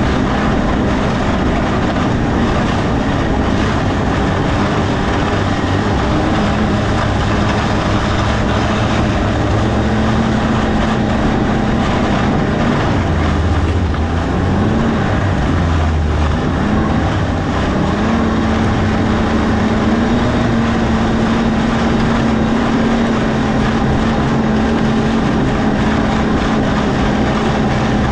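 A vehicle engine running steadily with a broad rushing noise over it. Its pitch dips and wavers briefly around the middle, then holds steady again.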